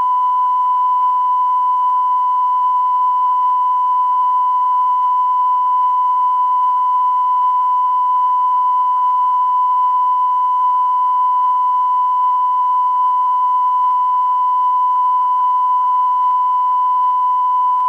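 Steady 1 kHz test tone, a continuous pure beep with faint overtones and light tape hiss under it, played back from VHS tape.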